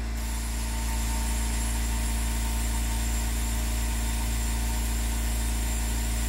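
Air compressor running with a steady hiss of air rushing into a car tire as it is inflated to seat the bead; no bead pop yet.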